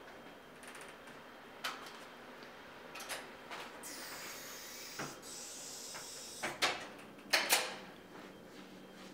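An interior door being handled: a run of clicks and knocks from the latch and door, with a brief rustle in the middle and the loudest two pairs of knocks near the end.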